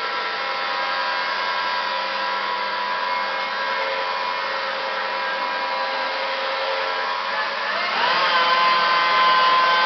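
Small handheld machine polisher with a 3M cutting pad running steadily on car paint while spreading polish, a steady motor whine. About eight seconds in the motor speeds up, the whine rising in pitch and getting louder.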